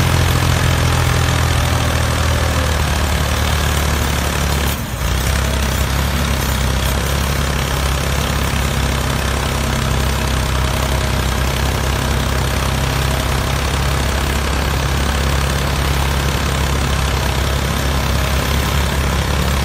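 Tractor engine idling steadily, a heavy low running sound, with a brief drop in level about five seconds in.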